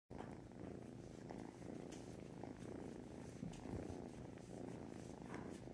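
A kitten purring steadily.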